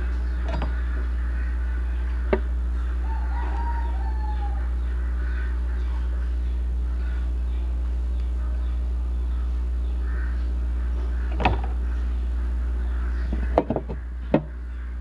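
A few sharp clinks and knocks of tongs and the lid on an electric grill pan, one a couple of seconds in, one near the middle and a quick cluster near the end, over a steady low hum. About three seconds in, a drawn-out bird call that slides in pitch, faint in the background.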